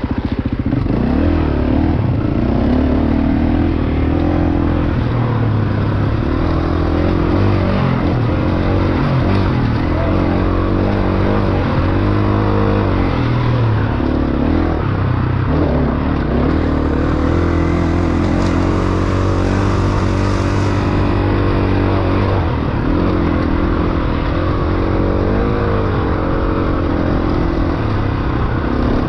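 Dirt bike engine running on a trail ride, its revs rising and falling again and again as the throttle is opened and closed.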